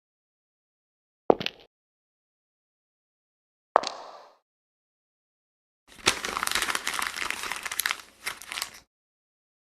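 A run of separate sound effects with dead silence between them: a short sharp hit, a second sharp hit with a brief tail, then about three seconds of dense crackling noise.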